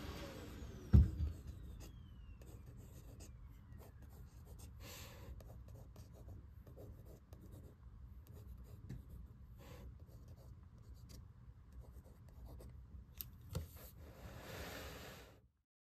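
Mechanical pencil scratching across sketchbook paper in quick, light strokes, with one sharp knock about a second in. The sound stops suddenly near the end.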